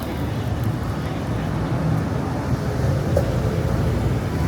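City street traffic: a steady low rumble of passing cars and other road vehicles.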